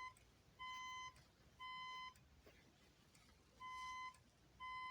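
System Sensor SpSW fire alarm speaker strobe sounding its steady beep tone in the temporal-three pattern: three half-second beeps about a second apart, a pause of about one and a half seconds, then three more. This is the standard evacuation alert that leads into a voice evacuation message.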